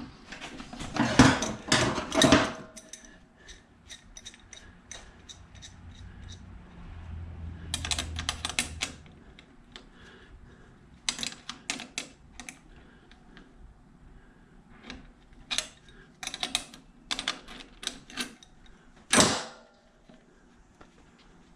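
Hand tools and small metal parts clicking, tapping and clanking at irregular intervals as small scrap items are worked apart. A dense run of knocks comes near the start and the loudest single knock comes near the end.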